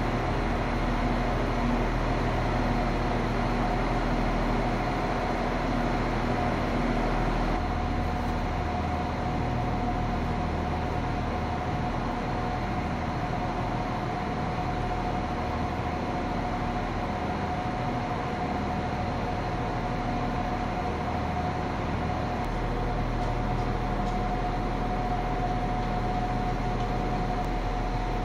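Irish Rail 22000 Class InterCity Railcar, a diesel multiple unit, standing at the platform with its engines idling. It makes a steady hum with a constant high whine over it.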